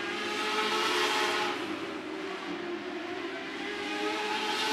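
Lightning sprint car engines running at high revs around the dirt oval: a high-pitched, steady engine whine from several cars, swelling as they pass, loudest about a second in and again near the end.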